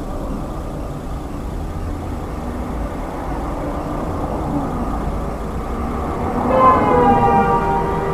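Steady low road and engine rumble of a moving vehicle. About six and a half seconds in, a loud pitched warning tone with several overtones starts and sags slightly in pitch.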